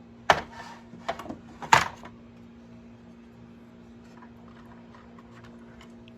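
Knocks and clacks of the Favero scoring box's casing and parts being handled and fitted back together: three sharp knocks in the first two seconds, the loudest just before two seconds in, then a few faint ticks. A steady low hum runs underneath.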